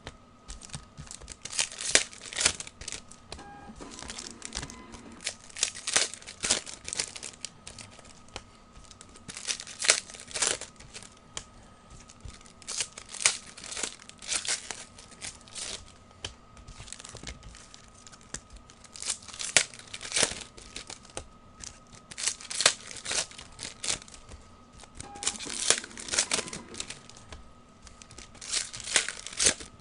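Foil O-Pee-Chee hockey card packs being crinkled and torn open, with cards handled in quick bursts of rustling every second or two.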